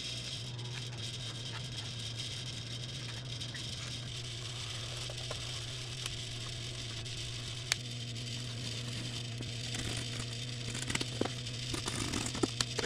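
Steady low hum and hiss of a small workshop, with a few light clicks and taps from handling a glue bottle and applicator on a balsa wing: one sharper click about eight seconds in and a cluster of small taps near the end.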